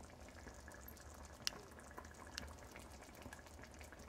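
A pot of black-eyed pea curry simmering faintly, with scattered small bubbling pops, the sharpest about a second and a half in, over a low steady hum.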